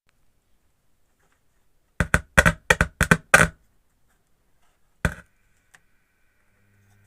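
A quick run of six sharp knocks or clicks of something being handled, with one more knock about a second and a half later. Near the end a faint steady hum sets in.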